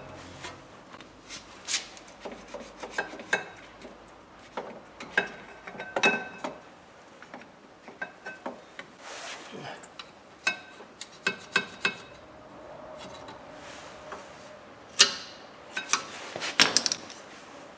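Metal tools and brake parts being handled: irregular sharp clinks, clicks and scrapes of metal on metal, with the loudest knocks near the end.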